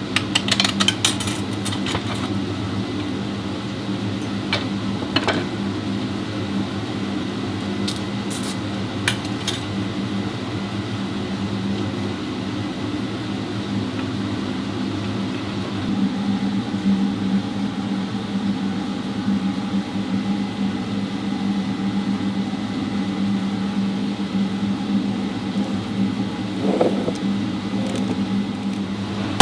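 Steady mechanical hum, shifting slightly about halfway through, with a few light clicks and clinks.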